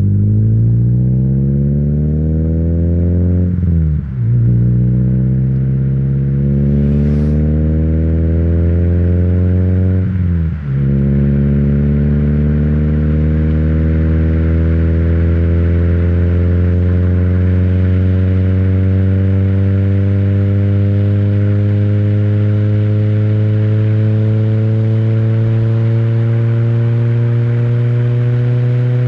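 Renault Twingo's exhaust, recorded with the microphone right at the tailpipe, as the car accelerates through the gears. The engine pitch climbs, drops briefly at gear changes about four seconds in and about ten seconds in, then rises slowly and steadily in the higher gear.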